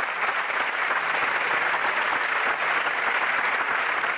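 Audience applauding steadily; many hands clapping at once.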